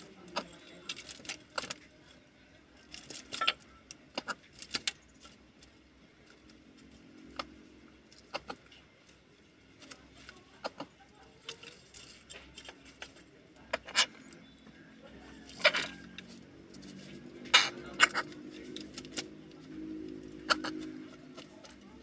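Greater coucal pecking and tearing at a millipede on a wooden board among empty snail shells: irregular sharp taps and clatters of its beak against the wood and shells, a few louder strikes in the second half, over a faint low hum.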